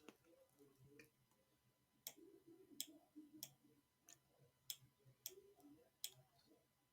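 Faint computer mouse clicks, seven or so at a steady pace of about one every two-thirds of a second, starting about two seconds in, as a weather map is being loaded and navigated.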